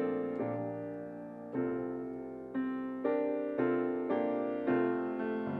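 Slow, gentle solo piano music: single notes and chords struck about once every half second to a second, each ringing and fading.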